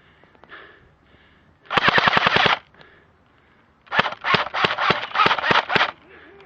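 Airsoft gun firing: a rapid full-auto burst lasting just under a second about two seconds in, then a string of sharp shots, about four a second, for about two seconds.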